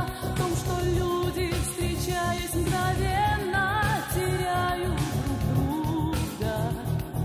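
Russian-language pop song: a voice singing over a band backing with a steady beat.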